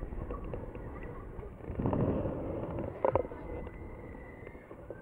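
Wind buffeting the microphone of a camera carried on a swinging fairground thrill ride. The wind swells about two seconds in, and a short sharp sound follows about a second later.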